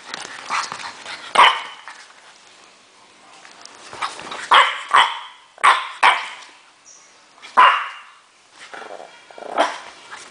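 French bulldog puppy play-barking: short, sharp barks with gaps between them, several coming in quick pairs.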